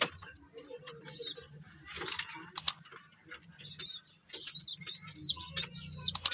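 A run of high, level whistle notes, each under a second long, starting about halfway through, over a faint low hum, with two sharp clicks.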